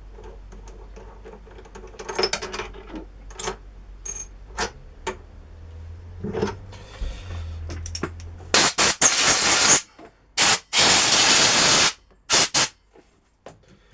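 Metal clinks and knocks from the steel plate and tools being handled. Then several loud hissing blasts of a compressed-air blow gun, two of them about a second long, likely clearing swarf off the plate.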